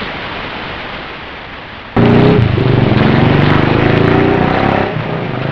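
Steady hiss of rain, then about two seconds in a sudden, much louder low drone with several steady pitches sets in and lasts about three seconds.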